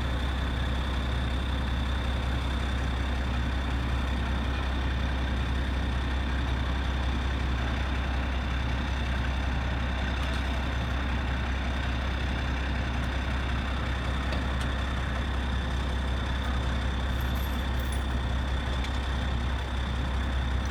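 Large truck engine idling steadily: a deep, even hum with a thin high whine held above it.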